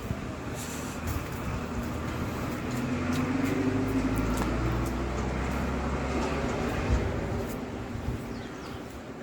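A motor vehicle's engine going past, its low hum growing louder for a few seconds and then fading away.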